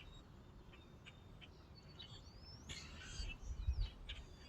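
Small birds chirping and calling, short scattered notes, some gliding up or down. A low rumble comes in a little past halfway.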